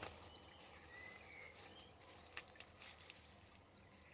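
Light rustling and crinkling of plant packaging being handled, in scattered short crackles, with a few faint bird-like chirps in the background.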